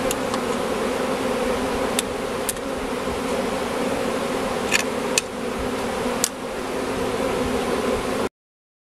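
A swarm of honeybees buzzing steadily, with a few short sharp clicks; the sound cuts off abruptly about eight seconds in.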